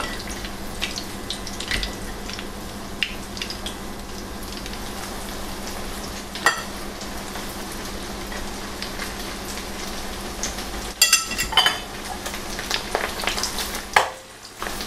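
Breaded chicken pieces deep-frying in hot soybean oil in a wok: a steady sizzle peppered with small pops and crackles. A few sharper clicks and knocks come about eleven seconds in and again near the end.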